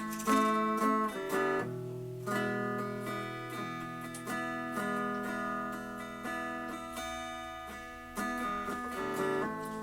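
Solo acoustic guitar playing a Spanish-flavoured blues in A minor. Single plucked notes alternate with strummed chords over a low bass note that rings on from about two seconds in.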